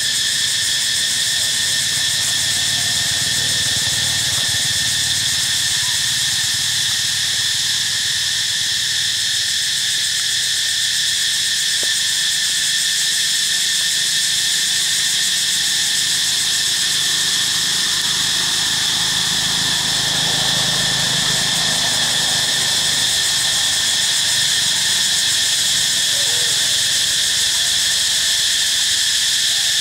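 A loud, steady, high-pitched insect chorus that does not let up or change.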